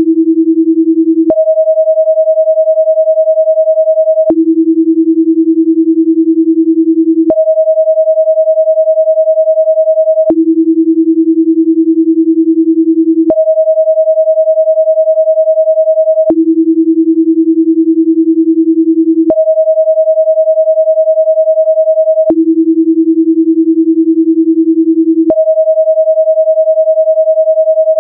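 Steady pure sine tones alternating every three seconds between a low tone and one an octave higher, with a faint click at each switch. This is a binaural-beat track, with the left and right channels 10 Hz apart, meant to drive a 10 Hz alpha rhythm in the brain.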